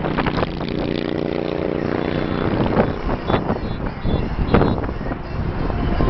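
Dense highway traffic running below, with wind gusting across the microphone. About half a second in, a vehicle horn sounds steadily for nearly two seconds.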